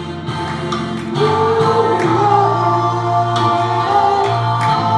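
A gospel song sung by a church choir with instrumental accompaniment: long held sung notes over a steady bass line and light percussion.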